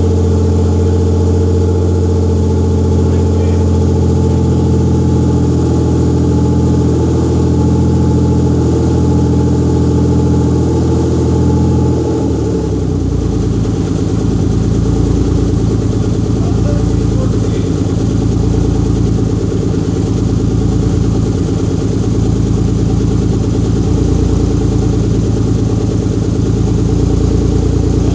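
Rebuilt Mitsubishi 3000GT VR4's twin-turbo 6G72 V6 running steadily on its first start-up after the rebuild, with no downpipe fitted. About twelve seconds in the engine speed drops and it settles to a lower, steady idle.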